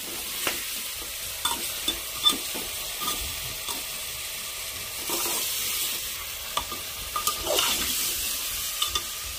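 Mutton pieces and ginger-garlic paste sizzling in hot oil in an aluminium pressure cooker. A steel ladle stirs them, with scattered scrapes and clinks against the pot: the meat is being browned (bhuna).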